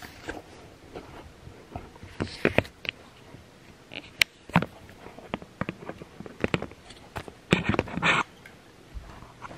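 Packaging being handled: irregular crackles and taps of plastic and cardboard, with a louder crinkling burst near the end.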